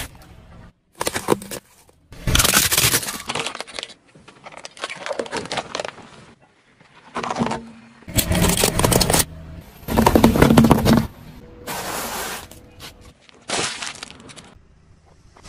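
A string of short crunching and cracking bursts, about eight in all with brief gaps between them, as a car tyre rolls onto things laid on asphalt and crushes them, among them a raw carrot and a plastic-wrapped food packet.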